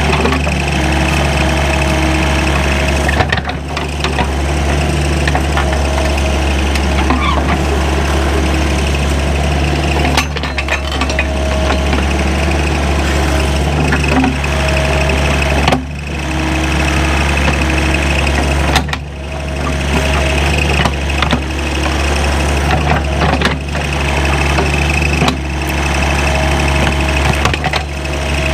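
John Deere 5055E tractor's three-cylinder diesel engine running steadily as it works dirt with a land plane, with scattered short knocks and rattles and a few brief dips in the engine note.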